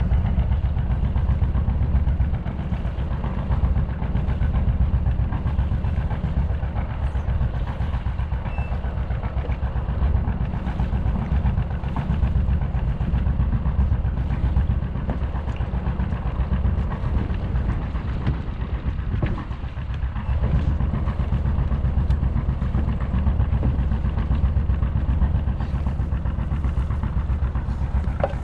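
A sailboat's inboard diesel engine running steadily, a low, even, pulsing rumble.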